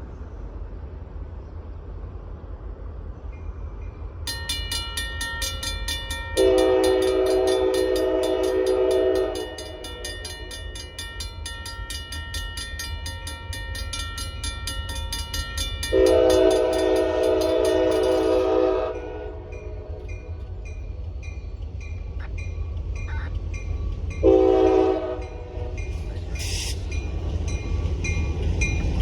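Railroad crossing bell, an electronic Safetran hybrid bell, starts ringing rapidly about four seconds in and stops around nineteen seconds in, as the gates come down. Over it, the horn of an EMD GP39-2 locomotive sounds two long blasts and then a short one, the long-long-short pattern of a grade-crossing signal. A steady low rumble runs underneath.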